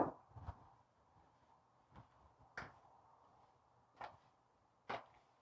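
Light knocks and taps of kitchenware while flour is mixed through raw tilapia pieces in a plastic container: a sharp knock at the start, likely a spoon or the small glass bowl against the container or countertop, then a handful of faint scattered taps.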